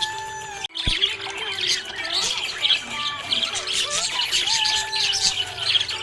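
Budgerigars chirping and warbling in fast, overlapping chatter, with whistled notes that glide up and down; the sound drops out for a moment under a second in.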